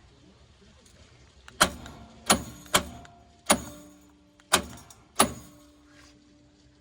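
Electric door-popper solenoid and plunger on a 1972 Chevy Vega with shaved door handles, worked three times. Each time it gives two sharp metallic clacks, pulling in and releasing, and the car's metal rings briefly after each one.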